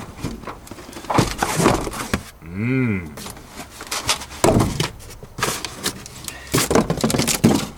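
Irregular knocks and clatter of parts and tools being handled, with a short rising-and-falling hum about three seconds in.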